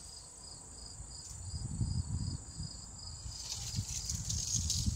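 Insects chirping, a pulsing chirp about twice a second over a constant high-pitched buzz. From about a second and a half in, low rustling and bumping noises join in, from the dirt and roots being handled.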